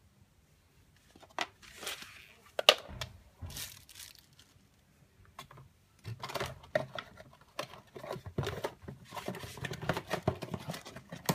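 Handling noise on a wooden table: a few sharp clicks and knocks as a plug-in charger and its cord are set down beside a flashlight. About six seconds in, a steady run of crinkling and rustling starts.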